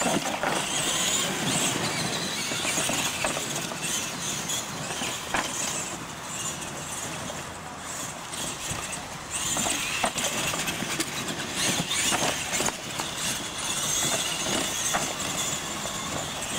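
Two radio-controlled monster trucks racing on a dirt track: the high-pitched whine of their electric motors and gearboxes, swelling and fading as they accelerate and slow, with a few short knocks.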